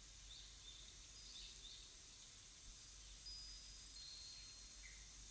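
Faint nature ambience: a few short, high bird chirps over a soft steady hiss, with a thin high whistle held for about a second and a half midway.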